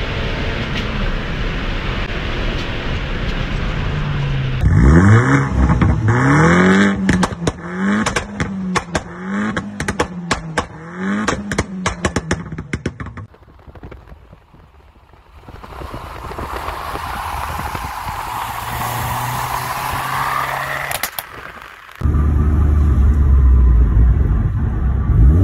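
Vauxhall Corsa VXR's turbocharged four-cylinder exhaust. A steady engine note under way gives way, about five seconds in, to a string of quick free revs, each blip followed by a rattle of crackles and bangs from the exhaust. Near the end comes a loud, low engine drone under hard acceleration.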